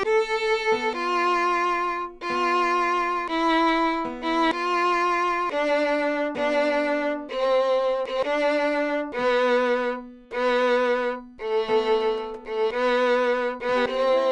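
Solo violin playing a slow melody of separate bowed notes with vibrato, roughly one note a second, often sounding two strings at once over a held lower note.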